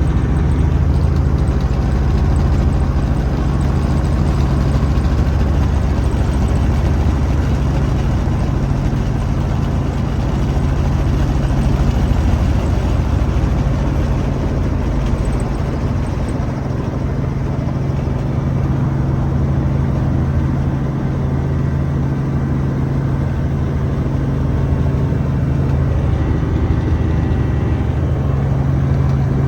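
Helicopter engine and rotor running with a steady drone and a low hum; the deepest rumble weakens about halfway through.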